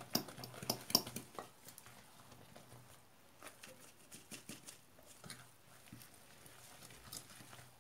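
Light clicks and taps of a utensil against a bowl while the batter is handled, a cluster in the first second and a half, then only faint scattered ticks.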